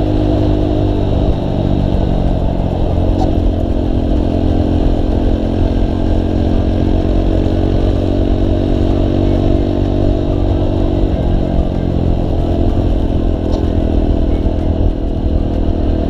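Motorcycle engine running steadily while riding, with wind rushing over the microphone; the engine pitch dips and comes back up twice as the throttle eases and opens again.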